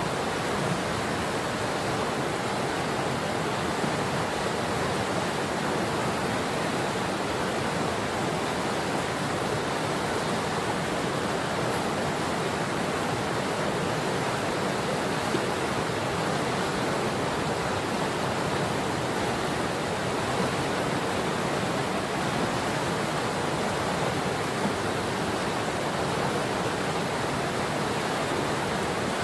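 Patapsco River water rushing steadily over rocks, an even, unbroken hiss.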